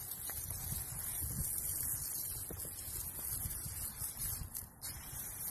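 Water from a garden hose hissing as it sprays onto bare soil, watering freshly sown seeds, with an uneven low rumble of wind on the microphone.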